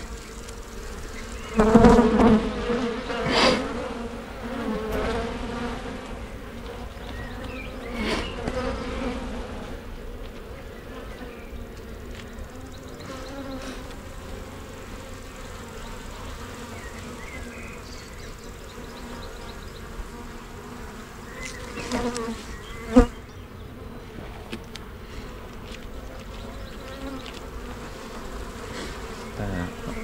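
Honey bee colony buzzing around an open hive as brood frames are lifted out. The colony has a newly mated queen that is laying. The buzz swells louder a few times as bees fly close, and there is one sharp knock about two-thirds of the way through.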